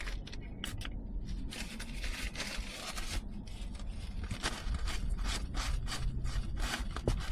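Cloth or alcohol wipe rubbed back and forth over windshield glass to clean it, a run of quick, hissy scrubbing strokes after a few light ticks at the start.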